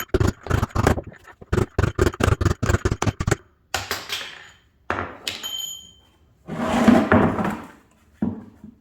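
Rapid hammer blows, about four a second, driving the worn drum bearing out of an LG washer's tub. They stop after about three and a half seconds, followed by a few heavier metal clanks and a scraping clatter, one with a short ringing metal tone, as the bearing comes loose.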